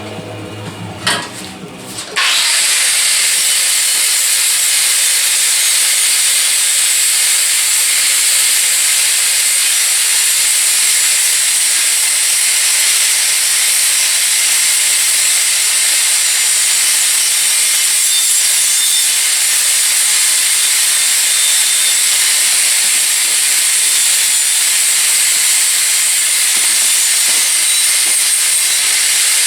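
A loud, steady hiss that starts abruptly about two seconds in, after a short stretch of music, and holds without change.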